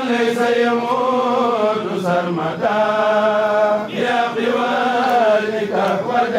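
A kourel, a group of male voices, chanting a Mouride khassida in unison. The melodic chant moves in long held phrases with short breaks between them.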